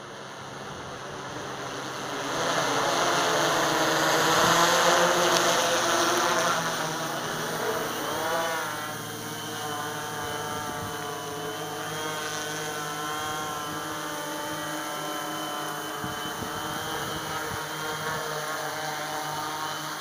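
Hexacopter drone with six U7 brushless motors and 18-inch propellers, humming with several steady tones. It grows louder a couple of seconds in as the drone comes down close. The pitch wavers around eight seconds in as it settles into a low hover, then holds steady as it lands.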